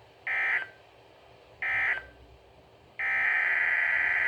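NOAA Weather Radio SAME digital data bursts, a harsh buzzing screech. Two short end-of-message bursts close out the severe thunderstorm warning about a second apart, then about three seconds in the longer header burst of the next alert, a tornado watch, begins.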